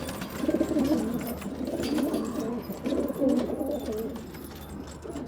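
Domestic pigeons cooing in repeated low, warbling bouts, loudest in the first three or four seconds and fading after that, with a few faint clicks.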